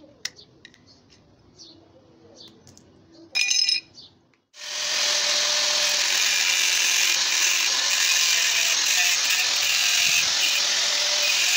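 Light metal clicks of pliers gripping the trowel's tang, and a short loud burst at about three and a half seconds. After a brief break, an angle grinder with an abrasive cutting disc starts and runs steadily, cutting through the rusty steel blade of a masonry trowel.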